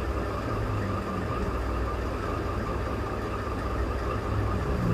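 Steady low mechanical hum in the background, even throughout with no strokes or changes.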